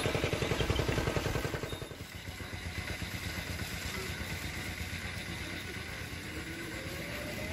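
A motor vehicle engine running with a fast, even pulse, loudest over the first two seconds, then fading into a steady outdoor background.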